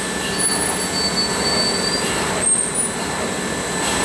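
Polymer pencil extrusion line running: a steady machine drone with a constant hum and a high whine, and brief high-pitched squeals now and then.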